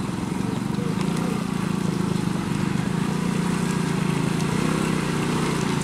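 A vehicle engine running steadily, an even low hum without a break.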